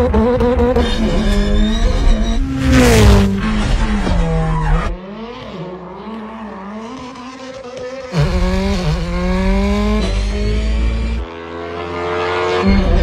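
Racing car engines accelerating hard, their pitch rising in repeated steps through the gears, heard in several abruptly cut clips. A short, loud, hissing burst comes about three seconds in, and the middle stretch is quieter and more distant.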